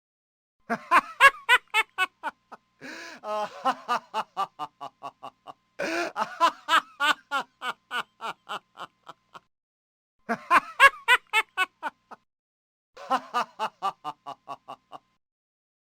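Five short bouts of human laughter one after another, each a quick run of 'ha-ha' pulses at about four to five a second and fading out, with brief silences between them.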